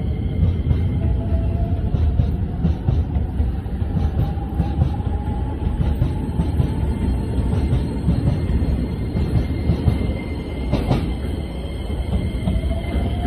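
Hokuso 7500-series electric train pulling away from the platform: a steady low running rumble under a motor whine that rises slowly in pitch as it gathers speed. There is a single sharp clack about eleven seconds in, and a new rising whine starts near the end.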